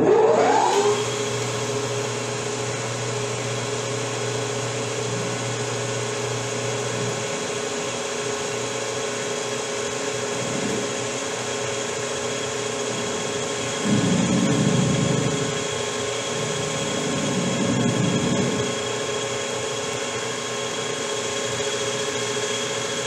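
Metal lathe spinning up and running with a steady gear whine while a radius cutter machines the cone breech on a rifle barrel's end. Two louder stretches, about 14 and 17 seconds in, where the cutter bites into the steel.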